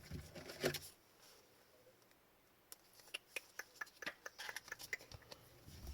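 Upper Deck hockey trading cards being handled and flipped through one after another: a run of quick, faint clicks and flicks that starts about three seconds in, after a quiet stretch.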